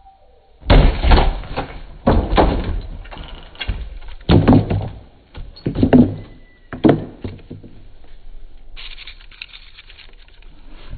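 An elbow smash breaks through the top of a wooden cabinet with a loud crack about a second in. Several more loud thuds and bangs follow over the next six seconds.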